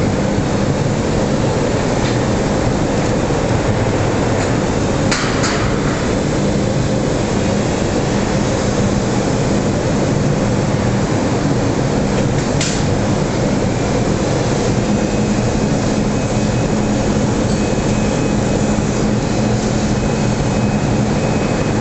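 Steady, loud industrial din of steel-mill plant around a vessel of molten steel: a constant noisy rumble with a low hum under it, broken by a short hiss about five seconds in and a sharp knock near the middle.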